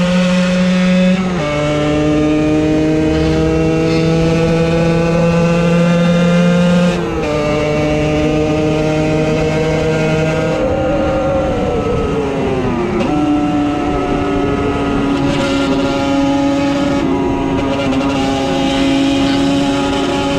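50cc motorcycle engine running under way: its pitch drops sharply twice, about one and seven seconds in, and climbs slowly again after each, as it shifts up. Around eleven to thirteen seconds in the pitch falls away as it slows, then holds steady.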